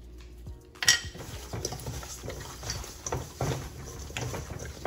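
Raw chicken wings being tossed and rubbed by a gloved hand in a stainless steel mixing bowl, with irregular wet squishing and clatter against the metal. It starts with a sharp knock on the bowl about a second in.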